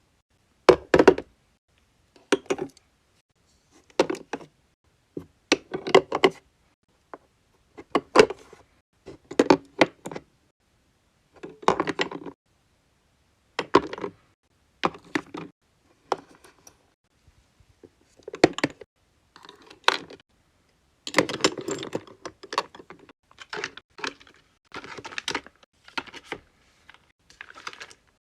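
Short knocks and clacks of skincare bottles and jars being handled and set down in a mini fridge, in small clusters every second or two with silence between them.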